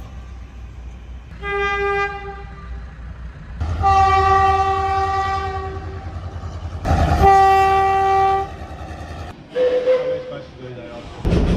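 A New South Wales Railways locomotive horn sounding a series of single-note blasts over the low rumble of the locomotive: a short blast about a second and a half in, a long one of about three seconds, then another short one. Near the end a different, higher-pitched horn is heard briefly, and then another clip of a locomotive running.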